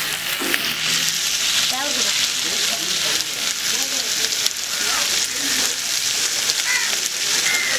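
Fish frying in hot oil (meen varuval), a steady dense sizzle.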